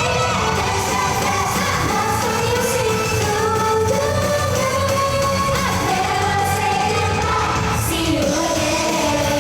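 Pop song performed live: a female singer's melody over loud amplified backing music with a steady beat.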